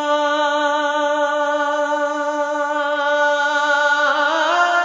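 Music: a singer holds one long note with a light vibrato and glides up to a higher note near the end.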